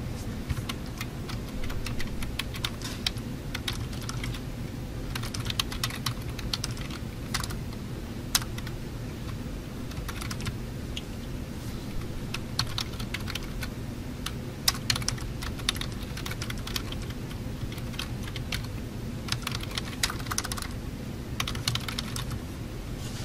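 Computer keyboard being typed on: quick runs of clicking keystrokes with short pauses between them, over a steady low hum.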